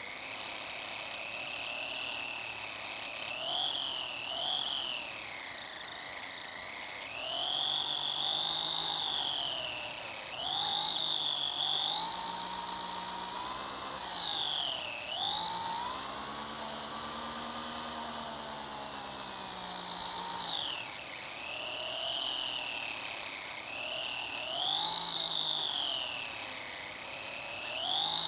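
RC car's motor whining, its pitch rising and falling again and again as the car speeds up and slows down. The longest, highest and loudest run comes about two-thirds of the way in.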